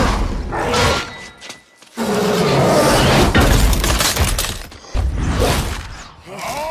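Sound effects of a film sword fight: loud crashing and shattering impacts with blade swings, over music, with a short lull about a second and a half in.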